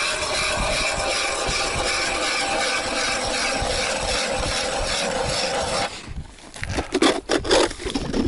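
Hand ice auger grinding steadily as its blades cut down into solid river ice. The drilling stops abruptly about six seconds in, followed by a few short knocks and scrapes.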